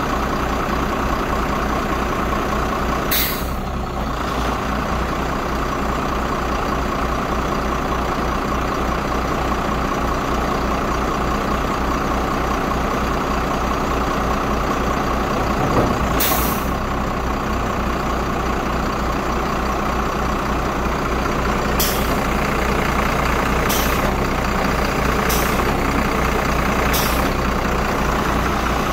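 Iveco Trakker truck engine running steadily, driving the hydraulics as the hooklift arm folds down onto the chassis. Short sharp air hisses cut in several times, once about three seconds in, once midway and in a quick series near the end.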